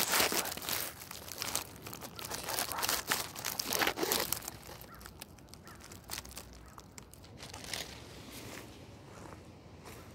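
Dry fallen leaves crackling and rustling right against the microphone, thick and loud for the first four seconds or so, then thinning to scattered quiet crackles.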